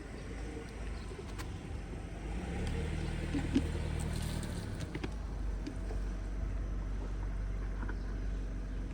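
A motor vehicle's engine hum over a steady low traffic rumble, strongest for a couple of seconds in the middle, with one sharp click about three and a half seconds in.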